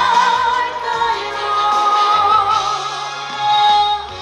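A singer holds a long, wavering note with vibrato over a backing band, a steady bass line moving underneath.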